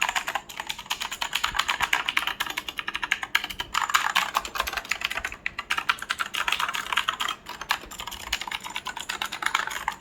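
HP GK320 mechanical keyboard being typed on quickly: a dense, continuous stream of key clicks.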